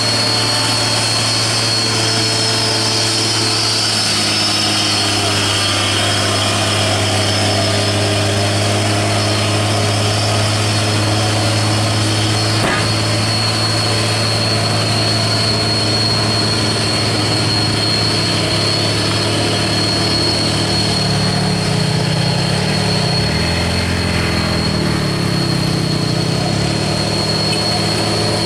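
Diesel engine of a heavily loaded Hino dump truck running steadily under load as it crawls up a steep hairpin climb, with a steady high whine above it.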